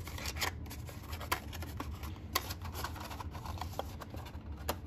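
Cardstock treat box being folded along its pre-scored creases: irregular crinkles and sharp clicks of stiff paper bending and tabs snapping, over a low steady hum.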